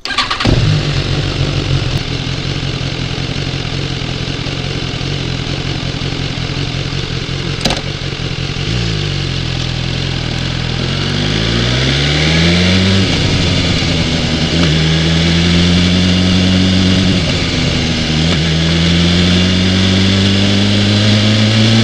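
BMW S1000XR motorcycle's inline-four engine starting with a brief flare, then idling steadily. About eight seconds in there is a sharp click. The bike then pulls away, the engine pitch rising through the gears, with dips at gear changes about 13 and 17 seconds in.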